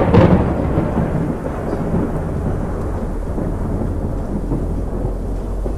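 Inside a moving Peugeot 308: a loud rumble with some rattling fades over the first second or two, leaving the steady low drone of engine and road noise.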